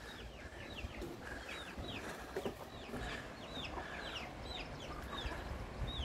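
Chickens calling: a fairly faint, steady string of short, high peeps, each falling in pitch, about two or three a second.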